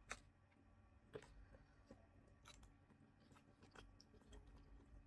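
Faint chewing of rice and fish, with a few light clicks of a metal spoon against the plate.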